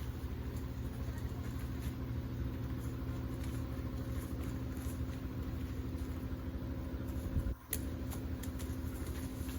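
A steady low mechanical hum, like an engine idling, with a short break about three quarters of the way through.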